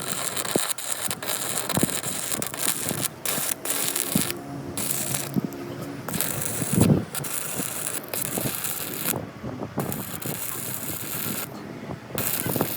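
Workshop metal clatter: an irregular run of clanks and knocks over a noisy background, with one heavier thump about seven seconds in.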